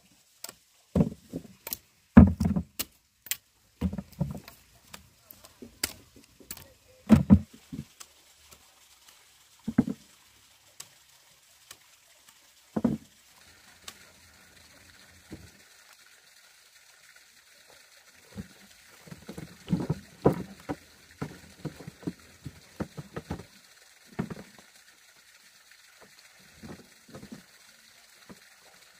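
Irregular dull thuds and knocks of hand digging with a hoe in earth, with a few sharp clicks among them. A steady high hiss joins about halfway through.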